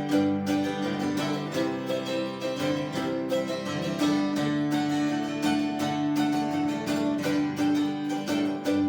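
Acoustic guitar playing an instrumental passage between sung verses of a folk song, steady picked notes with no singing.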